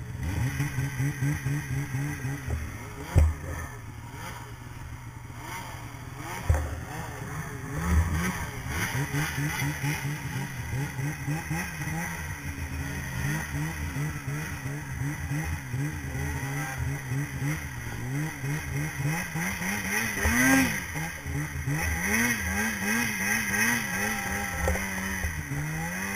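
Polaris snowmobile engine heard on board, revving up and down over and over as the throttle is worked through deep powder, with a few sharp thumps about three, six and a half and eight seconds in.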